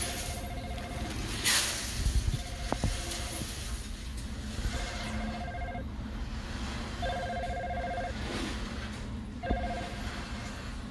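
A repeating electronic ringing tone, two steady notes sounding in spells of about a second with short gaps, over a steady rumbling background, with a few sharp knocks about two seconds in.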